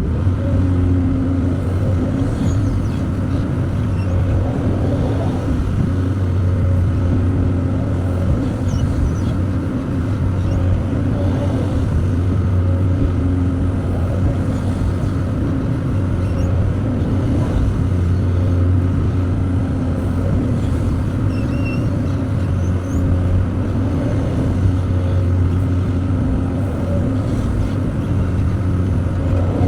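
Excavator's diesel engine running steadily with a deep, even drone while it loads material onto a truck.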